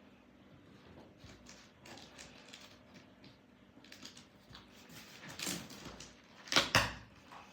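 Handling noises: scattered light taps and rustling, then two sharp knocks close together near the end.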